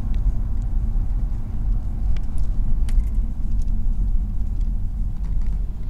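Steady low rumble of a moving car heard from inside the cabin: road and engine noise, with a few faint clicks.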